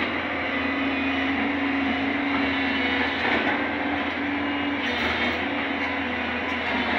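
JCB crawler excavator travelling on its steel tracks: the diesel engine runs steadily with a humming tone over a continuous rattle and clatter from the tracks.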